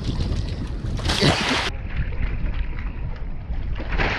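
Wind buffeting the microphone over a steady low rumble, with a short surge of rushing noise about a second in.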